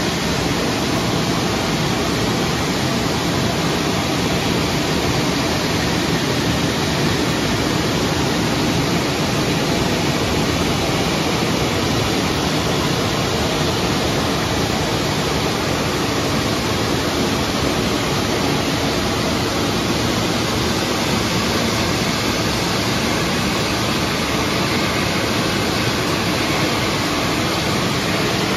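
Istobal M'Start rollover car wash dryer blowers running, a loud, steady rush of air from the top dryer nozzle lowered over the car's bonnet during the drying pass.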